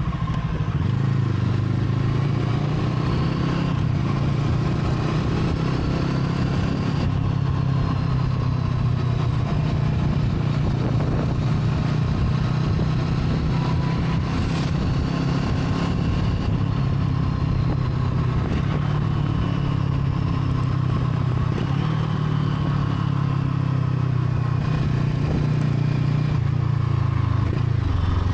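Brixton Crossfire 500's parallel-twin engine running steadily at an even, low pitch, with no clear rise or fall in revs.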